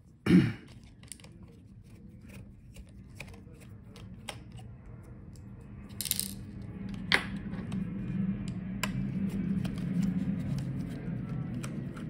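Scattered small clicks and taps of a precision screwdriver and tiny screws on a laptop's metal and plastic parts during disassembly, with one loud thump near the start and a brief scrape about six seconds in. A low steady hum sits underneath in the second half.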